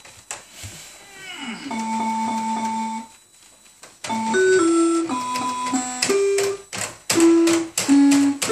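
Small electronic keyboard played by a toddler: a falling glide into one held note, a short pause, then single notes at different pitches pressed one after another with the clack of the plastic keys.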